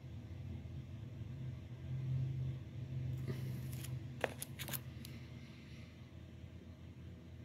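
Postcards in clear plastic sleeves being handled and pulled from a card storage box: a few short, sharp crinkling clicks about three to five seconds in, over a steady faint low hum.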